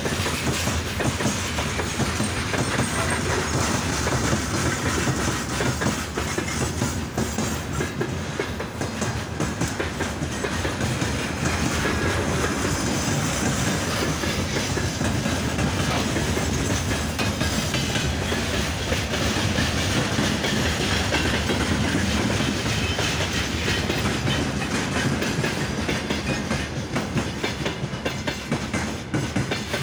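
Freight train wagons rolling past, their wheels clattering steadily over the rails.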